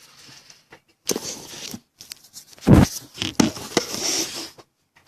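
Close-up rustling and scraping of things being handled on a table, with a loud dull thump a little under three seconds in.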